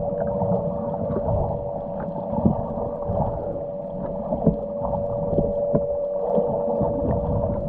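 Underwater sound heard through a submerged camera: a steady hum with a low rumble and scattered clicks and knocks, muffled with the highs cut off.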